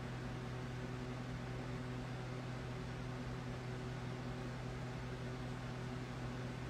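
Steady low hum over a constant hiss, unchanging throughout: room background noise with nothing else standing out.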